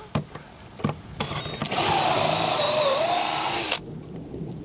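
Power drill running for about two and a half seconds, boring pocket holes into a wooden form board. Its motor whine dips slightly under load, then cuts off suddenly.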